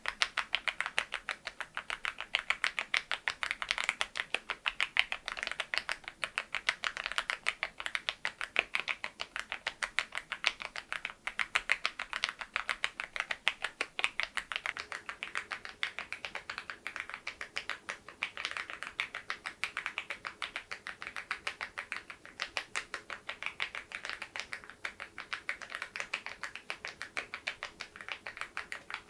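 Fast continuous typing on a mechanical keyboard fitted with very-low-profile keycaps over LEOBOG Graywood linear switches: a rapid, even run of light key clacks.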